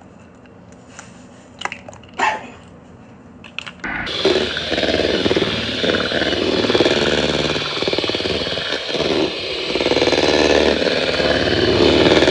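Electric hand mixer running steadily, its beaters churning egg-rich pound cake batter. It switches on about four seconds in, after a few light clicks as an egg is cracked into the bowl.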